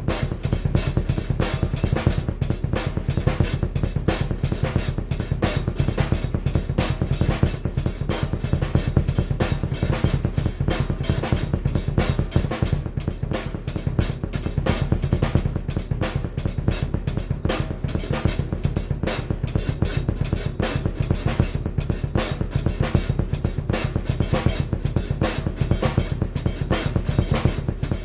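Drum kit played with a double bass drum pedal: a fast, unbroken stream of kick drum strokes with snare and cymbal hits over it.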